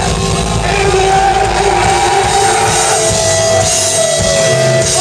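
A rock band playing live in a small club: electric guitars, bass and drum kit, loud throughout.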